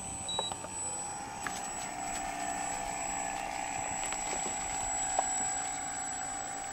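Flyzone Switch RC floatplane's electric motor and propeller running as a steady whine while the plane runs across the water on its floats.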